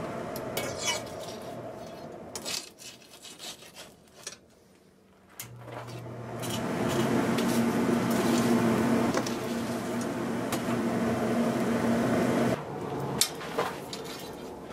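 Electric blower on a coal forge running with a steady hum and rush of air. It goes quiet for a few seconds, then spins back up about five and a half seconds in and builds to a steady run as the fire is brought up to heat a bar.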